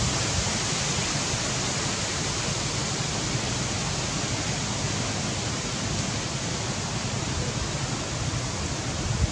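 A steady, even hiss of outdoor background noise, with no distinct calls, knocks or other events.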